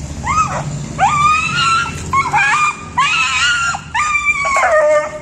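A pitbull on a leash whining in a run of about five high-pitched, drawn-out squeals, each rising then holding, the last one dropping lower at its end; the whines of an excited dog straining on its leash toward another dog.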